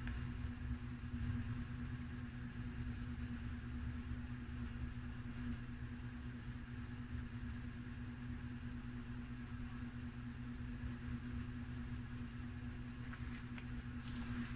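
A steady motor hum holding one low tone over a low rumble. Near the end come a few brief crackles of the pizza box's paper liner being handled.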